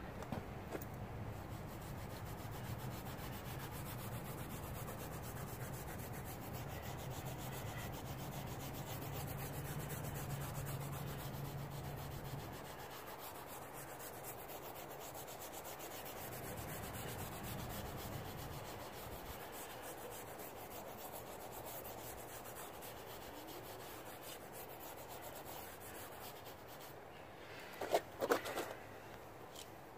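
A fine (000) steel wool pad scrubbing the wet rubber whitewall of a tire coated in bleach-white whitewall cleaner: a steady rubbing scrub.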